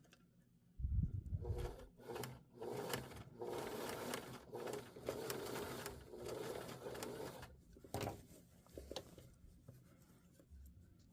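Sewing machine stitching through denim in several short runs, stopping and starting, after a knock about a second in. It stops about three-quarters of the way through, followed by a sharp click and a few small handling sounds.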